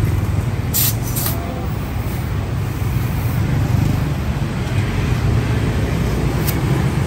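Street traffic runs steadily with a low rumble, and short hisses of air cut through it: two close together about a second in and a fainter one near the end.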